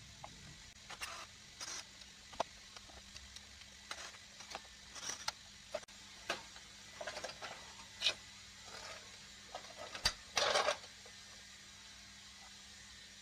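Irregular clicks, taps and short scrapes of plastic and metal parts being handled as a Canon LBP2000 laser printer is taken apart, with a longer scrape about ten seconds in, over a faint steady hum.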